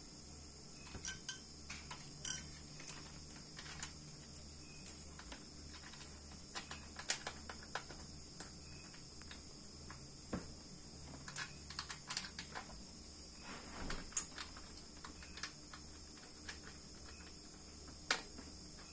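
Scattered light clicks and taps as test leads, probe clips and wires are handled inside an open metal amplifier chassis, irregular and several seconds apart in places, over a steady high-pitched background drone.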